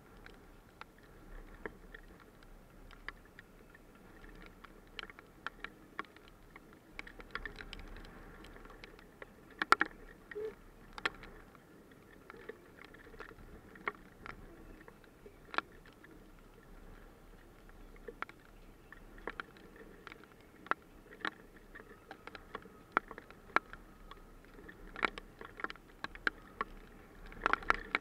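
Scattered hailstones ticking sharply and irregularly, coming more often near the end as a hailstorm begins.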